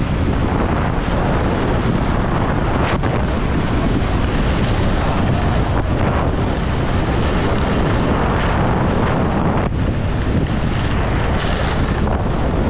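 Steady, loud wind buffeting the camera microphone during a fast ski run at around 80 km/h.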